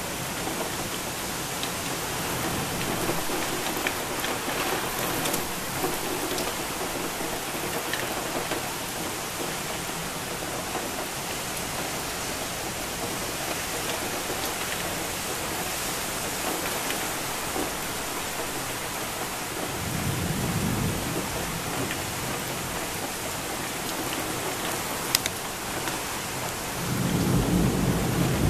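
Heavy rain pouring down in a steady hiss, with low rumbles of thunder swelling about twenty seconds in and again near the end. A single sharp click a few seconds before the end.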